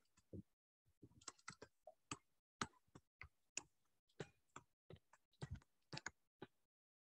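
Faint, irregular clicks and taps of a pen stylus on a tablet surface while words are handwritten, a few strokes a second with short gaps between.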